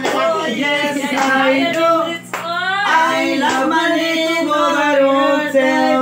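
A group of men and women singing together, with hand claps.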